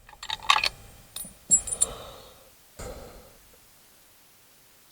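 Metallic clicks and clinks of a Remington .270 rifle's action being worked and a cartridge handled in the first two seconds, then a soft knock near three seconds.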